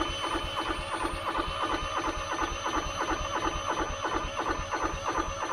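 The starter of a truck's diesel APU cranking its small engine over, with about two compression pulses a second and a steady whine above them; it cranks without catching, then cuts off abruptly. The engine was later found to have its glow plugs snapped off in the head.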